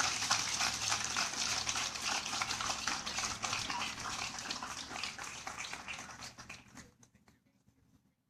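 Crowd applauding, a dense patter of clapping that dies away about two-thirds of the way through.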